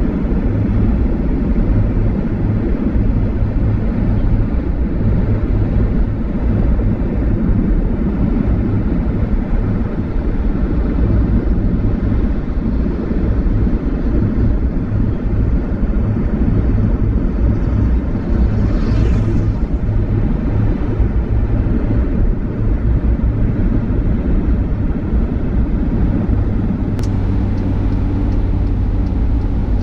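Steady low rumble of a car driving on a highway, road and engine noise together. There is a brief whoosh about two-thirds of the way in and a sharp click near the end.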